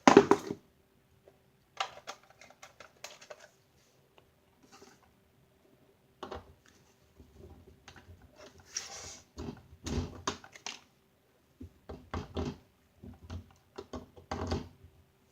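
Scattered clicks, taps and knocks from something being handled at close range, in irregular clusters, over a faint steady hum.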